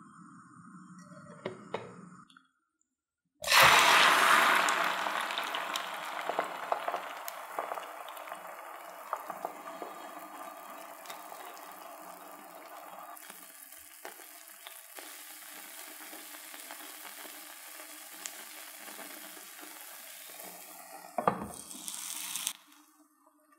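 Potato, egg and coriander mixture frying in hot oil in a nonstick pan: a sudden loud sizzle as it goes in, settling to a steady, quieter sizzle with small scrapes and clicks of a silicone spatula. Near the end a glass pan lid clinks onto the pan, and the sizzle cuts off.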